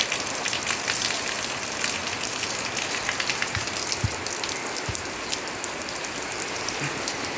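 Rain falling steadily: a dense hiss with many small, sharp drop taps on surfaces.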